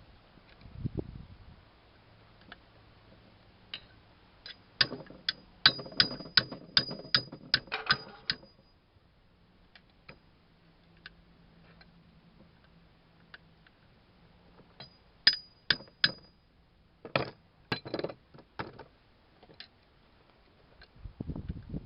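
A crescent wrench on a stuck vise nut being tapped to break it loose: a quick run of sharp, ringing metal strikes, about three a second. A few more strikes come later, then some duller knocks.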